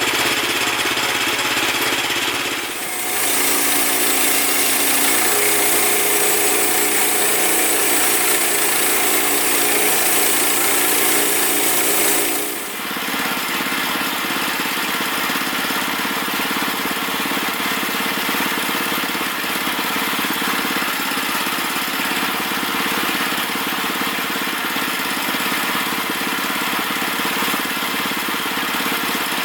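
Woodland Mills HM122 band sawmill running under its 9.5 hp engine, the band blade cutting through a log in steady passes. The sound changes abruptly twice, about 3 seconds in and again around 12 seconds in, with a stronger high hiss between those points.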